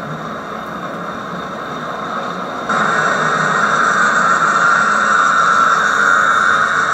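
HO-scale model train running past on the layout's track: a steady whir of the cars' wheels on the rails and the locomotive's motor. It gets suddenly louder a little under three seconds in.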